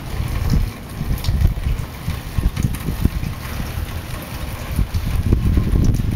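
Storm wind gusting across the microphone: an uneven low rumble that swells and drops with each gust.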